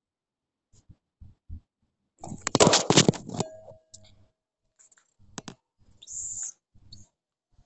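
Handling noise while folded paper and craft things are moved about: scattered light clicks and rustles, with a loud burst of clattering and rustling from about two to three and a half seconds in, and a short hiss a little after six seconds.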